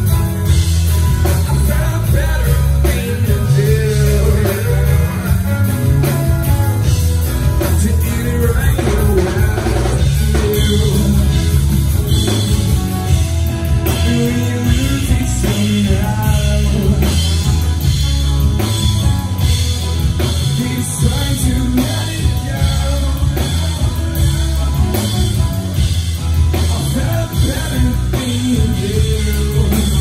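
Live rock band playing loudly: drum kit and electric guitar, with some singing.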